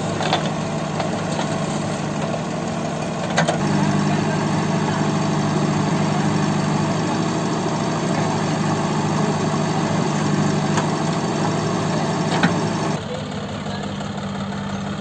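Diesel engines of a JCB 3DX backhoe loader and a three-cylinder John Deere 5045D tractor running steadily, with a few sharp knocks as the backhoe bucket works. The engine sound steps up a little about three and a half seconds in and drops near the end.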